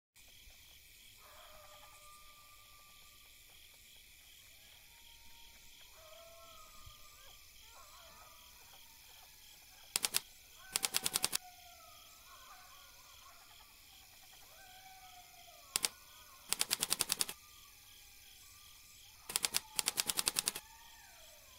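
Three short bursts of rapid clicking, each a single click followed by a quick rattle lasting about a second. This is a computer-style text-typing sound effect as on-screen name labels are typed in. Faint chirping underneath.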